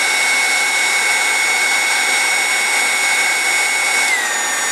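Electric heat gun running steadily, a motor-and-fan whir with a high whine, blowing hot air onto a kinked PEX-B pipe. The whine drops slightly in pitch about four seconds in.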